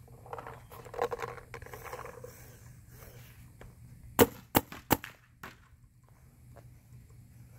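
Paintball marker firing three quick shots about a third of a second apart, a little past halfway through, followed by a fainter pop. Softer rustling handling noise comes before the shots.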